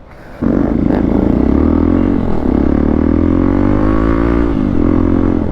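Motorcycle engine with the dB killer removed from its exhaust, coming in loud and sudden about half a second in and revving, its pitch climbing slowly and dropping again near the end.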